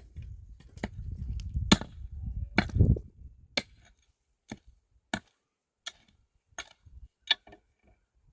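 Repeated sharp chopping blows of a hand tool. They come irregularly over a low rumble for about three seconds, then as single strikes roughly one every two-thirds of a second.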